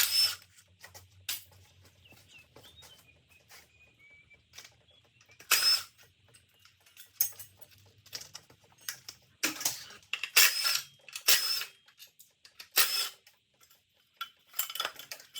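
Metal hand tools and engine parts clinking and clanking during an engine teardown: a string of irregular sharp knocks, each with a brief metallic ring. A faint high squeak comes and goes about two to four seconds in.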